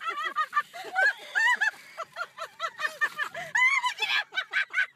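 High-pitched laughing and squealing from people inside a car, in quick rising-and-falling bursts several times a second.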